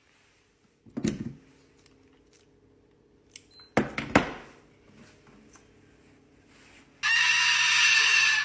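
A couple of dull thuds on a wooden floor, then a Moluccan cockatoo screeching loudly for about a second and a half near the end.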